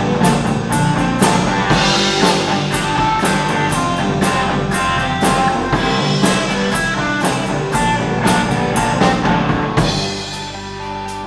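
Rock band playing, with drum kit, bass drum and guitar keeping a steady beat. Near the end the playing thins out, leaving a held note.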